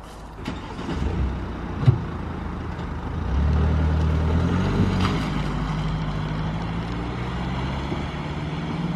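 A door shuts with a sharp knock about two seconds in. Just over three seconds in, a Mercedes-Benz Vito diesel van's engine starts and runs steadily as the van pulls away.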